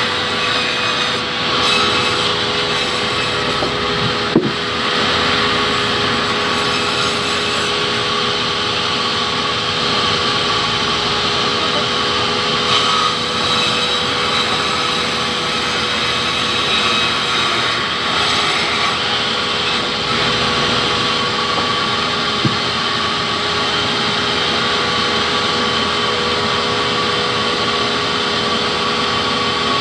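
Sawmill band saw running steadily with a constant hum as its blade rips lengthwise through a hardwood log fed along the table. Two sharp knocks come through, one about four seconds in and one near twenty-two seconds.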